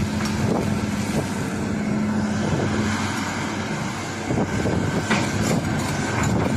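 Hitachi hydraulic excavator's diesel engine running under load as the bucket digs and lifts sand, with a steady drone for the first three seconds. A few sharp knocks and scrapes of the bucket come about five seconds in.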